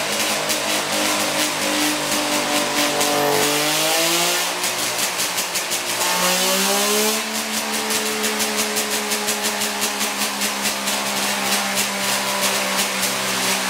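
DKW MTZ 1000cc two-stroke three-cylinder race engine running on a test dyno. About three seconds in it revs up, holds high briefly, then drops back about six seconds in and settles at a steady fast idle.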